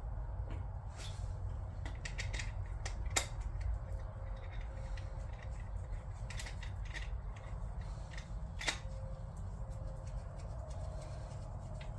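Scattered light clicks and taps of hand tools and parts being handled while working on an engine, over a steady low hum; sharper knocks about three seconds in and near nine seconds.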